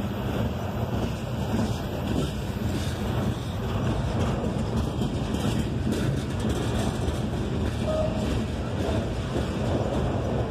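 Loaded coal hopper cars of a freight train rolling past: the steady noise of steel wheels on rail.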